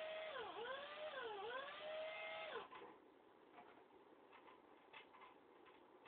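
Cordless drill motor whining at a steady pitch as it drives a woofer mounting screw, the pitch dipping twice as the trigger is eased or the screw loads it, then stopping about two and a half seconds in. Light clicks and taps of the woofer frame being handled follow.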